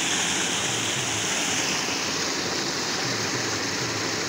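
Fast-flowing stream rushing steadily over stones.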